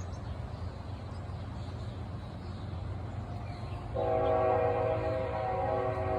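A low rumble, then about four seconds in a train horn starts blowing, several steady tones sounding together, and holds without a break.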